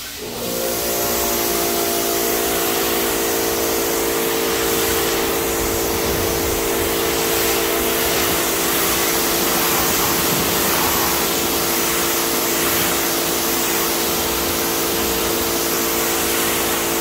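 Pressure washer spraying a steady jet of water over a car's hood to rinse off the wash soap. The loud hiss of the spray is laid over the steady hum of the washer's motor and pump.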